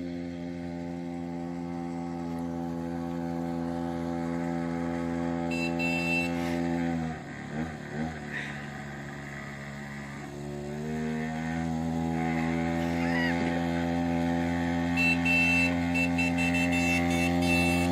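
Mini bike's small gas engine running as it is ridden. About seven seconds in the engine note drops and fades for a few seconds, then picks back up and grows louder again.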